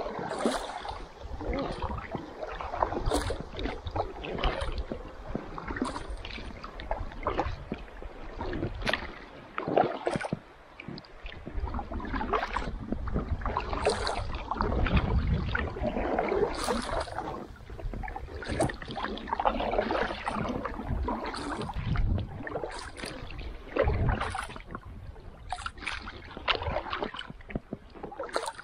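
Kayak paddling: a double-bladed paddle dipping and splashing into the water in alternating strokes every second or two, with drips falling off the blades and a low rumble underneath.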